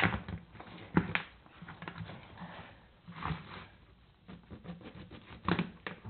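Sharp metal clicks and knocks with light, rapid scraping as a small hand tool is worked into the dog notch of a steel Duke 1.5 double-jaw foothold trap, cutting a small lip so the dog will hold at night latch. The sharpest knocks come about a second in and again near the end.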